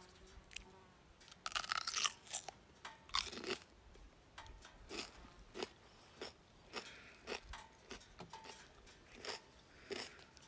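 A fresh cucumber being bitten into with loud crunches, then chewed in steady crunching strokes about twice a second.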